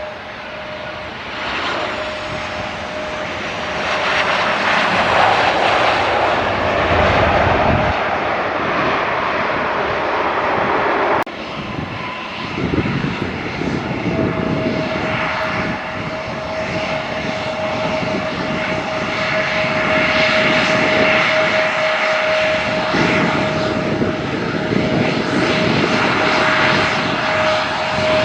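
Airliner engines running loud, a rushing roar with a steady high whine on top. About 11 seconds in the sound cuts off abruptly and comes back, and the whine returns stronger a few seconds later.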